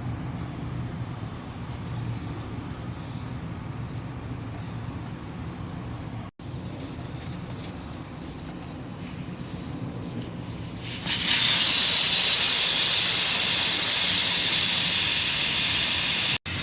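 Low steady background rumble, then about eleven seconds in a loud, steady hiss of air rushing out of a car tire through its valve stem with the valve core removed, as the tire deflates.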